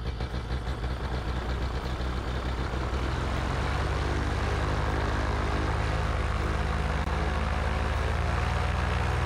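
Paramotor engine idling, spinning a freshly repaired carbon-fibre propeller on its first run. The running is a little uneven for the first few seconds, then settles into a steady idle.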